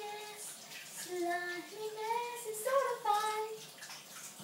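A young girl singing a short tune, holding notes that step up and down.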